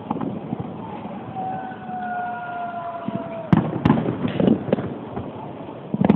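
Fireworks display: a whistle drifting slightly lower sounds for about two seconds, then a quick cluster of sharp bangs and cracks from the bursting shells about three and a half seconds in, with one more bang near the end.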